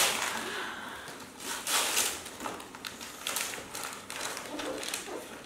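Wrapping paper being torn and crumpled off a present, in irregular rustling bursts.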